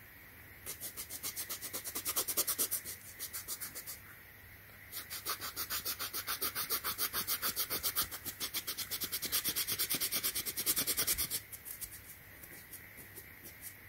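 Quick rubbing strokes of an alcohol-dampened cotton ball scrubbing old glue residue off the rubber footbed of a slide sandal, about five strokes a second. The rubbing comes in two runs with a short pause about three and a half seconds in, then thins to a few scattered rubs near the end.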